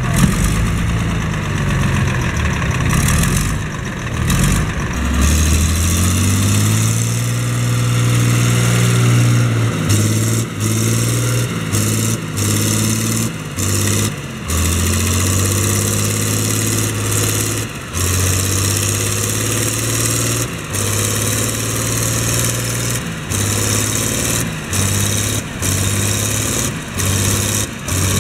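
Air-cooled diesel engine of a Massey Ferguson 1102 (Eicher 3105) working under load while pulling a manure spreader through deep mud, its pitch rising and falling as it is revved. In the second half the sound dips sharply again and again, about once a second.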